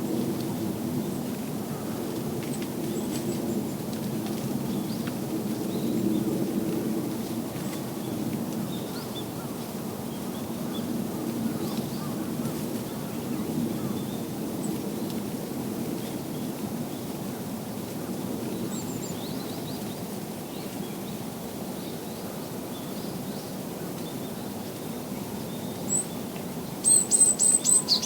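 Outdoor ambience with a steady low hum and faint scattered bird chirps; near the end a small songbird gives a quick run of about five short, high-pitched call notes, the loudest sound here.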